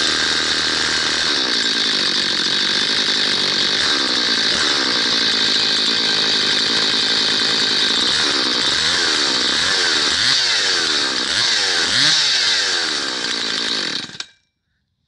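Two-stroke chainsaw running just after a start with the choke off, then revved up and down several times in the second half before it cuts off abruptly near the end.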